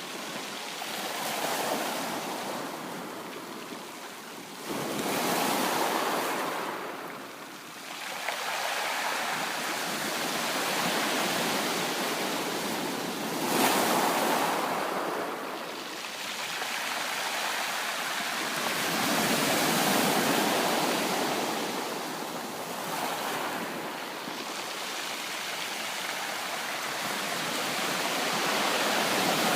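Sea waves breaking and washing up on a beach, the surf swelling and easing every few seconds, with one sharper break about thirteen seconds in.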